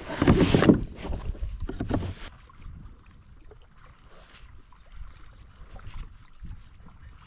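Water sloshing and splashing in a fishing kayak's drive well for the first two seconds or so, as a small bass is dropped back through the drive hole; then faint wind noise on the microphone.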